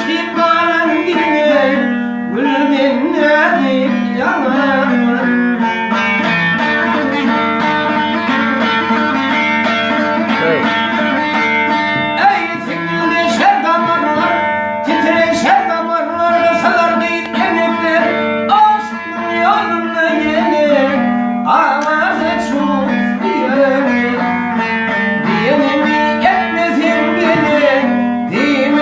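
Turkmen music: plucked and bowed string instruments play an ornamented melody over a steady low drone.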